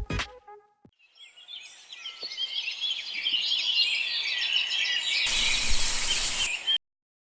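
Many birds chirping and singing together, swelling in over the first couple of seconds. Near the end a loud burst of rushing noise covers them for about a second, and then the sound cuts off abruptly.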